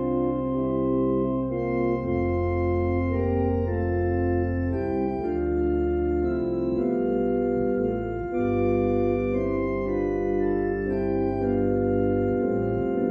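Organ playing slow sustained chords over held bass notes, the chords changing every second or two.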